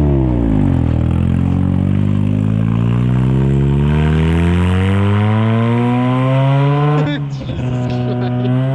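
1983 Mazda RX-7's 12A rotary engine and exhaust under acceleration. Its pitch dips in the first second, then climbs steadily for about six seconds. About seven seconds in it drops sharply at a gear change and starts climbing again.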